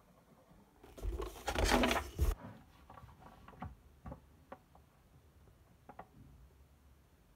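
Paper rustling as a page of a test booklet is turned and pressed flat, lasting about a second and a half, followed by a few light taps and scratches of a pen on the paper.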